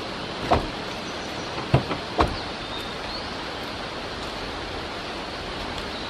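Steady hiss of distant car traffic, broken by three sharp thumps: about half a second in, then twice close together near two seconds. A few faint high whistled notes of a blue-and-white flycatcher's song come through just after the thumps.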